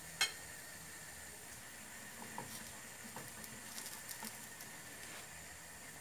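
Crepe batter sizzling faintly in a hot frying pan, with scattered small crackles and one light knock about a quarter second in.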